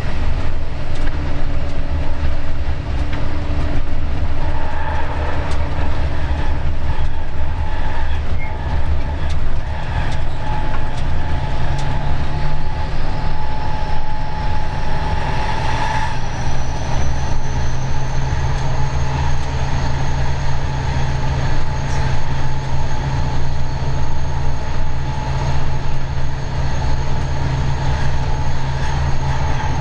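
Vossloh G 1206 diesel-hydraulic locomotive running along the line, heard from its cab: a steady engine drone with wheel noise on the rails. About halfway through the engine note steps up and a high whine climbs, then holds steady.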